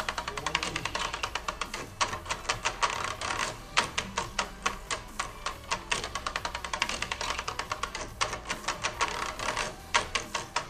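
Homemade flasher drum turning, its contacts clicking rapidly and unevenly over the metal strips as it switches the LED display's circuits on and off, over a low hum.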